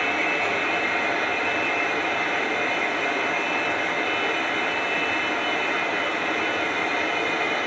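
Steady mechanical rushing noise with a few faint high tones, unchanging throughout.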